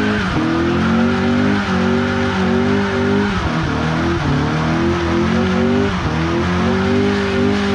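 Car engine held at high revs during a burnout, with the revs dipping briefly about five times, over the noise of spinning tyres.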